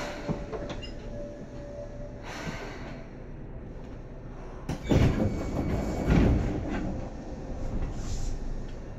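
Seibu 2000 series electric commuter train heard from inside the car: a steady rumble with a thin steady whine for the first two seconds, then a sharp knock and two loud deep rumbling surges about five and six seconds in.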